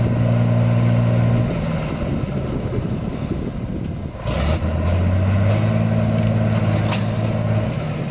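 The engine of an 8060 rice combine harvester running loud and steady. Its note drops back after about a second and a half and picks up again about four and a half seconds in, with a brief knock or two along the way.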